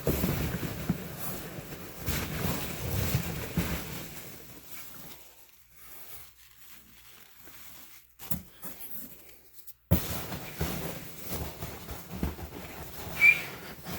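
Cardboard boxes and packing being handled and rustled, with small knocks and scrapes. A brief high squeak comes near the end.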